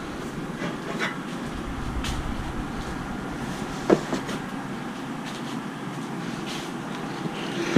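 Steady background noise with a few light, sharp clicks and taps of small metal engine parts being handled, the strongest about four seconds in.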